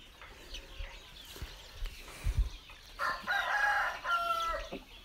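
A flock of Aseel-cross chickens calling, with a cockerel crowing for about a second some three seconds in, followed by a shorter call and faint chirps around it. There is also a dull bump about two seconds in.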